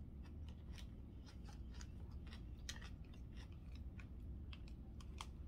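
A person chewing a mouthful of pot roast and vegetables, faint, with small irregular wet mouth clicks.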